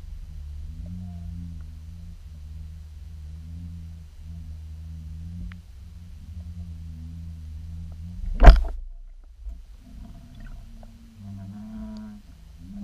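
Underwater sound picked up by a submerged camera: a low, wavering hum that breaks off and returns every second or two. There is one loud knock about eight and a half seconds in.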